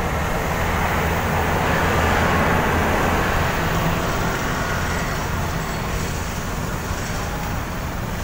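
Road traffic going by, a steady rush with a low engine hum underneath, swelling as a vehicle passes about two seconds in.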